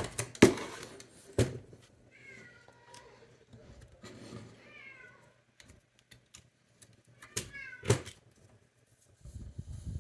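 A cat meowing three times, each a short cry falling in pitch, with a few sharp knocks near the start and about eight seconds in.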